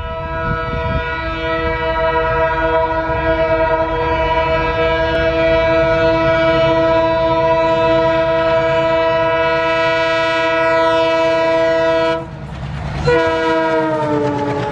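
Alco diesel locomotive running through at speed, sounding its multi-tone horn in one long blast of about twelve seconds over the rumble of its engine. The horn breaks off briefly, then sounds again and drops in pitch as the locomotive passes.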